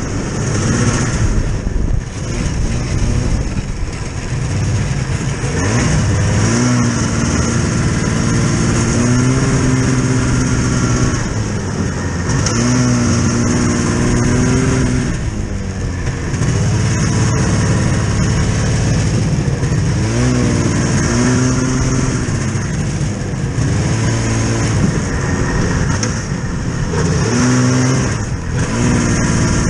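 A motor vehicle's engine running under load, its pitch rising, holding and dropping about four times as it speeds up and eases off.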